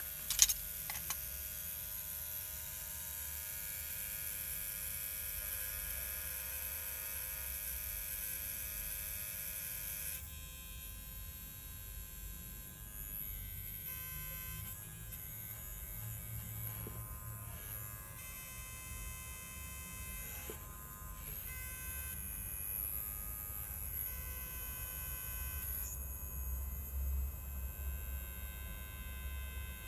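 Small electric motor of a corded Wahl Detailer hair trimmer, out of its housing, running with a steady buzzing whine. Its shaft has just been oiled to cure a slight noise. A sharp click comes just after the start, and the sound drops a little and changes about ten seconds in.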